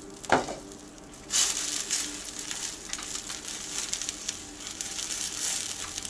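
Noodles in sauce sizzling and bubbling in a frying pan as they are stirred at the boil. A short sound comes as the glass lid is lifted off, and the sizzling grows louder about a second in.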